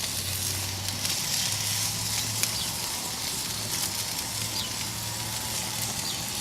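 Apples sizzling on a Weber Genesis gas grill, a steady hiss with small crackles and pops, over a steady low hum.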